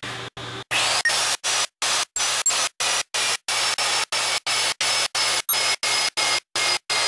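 AGP PMD3530 low-profile magnetic drill switched on about a second in, its 1100 W motor whining up to speed and then running steadily as the annular cutter is fed gently into the steel plate. A thin high whine holds over dense noise, and the sound is broken by brief regular gaps about three times a second.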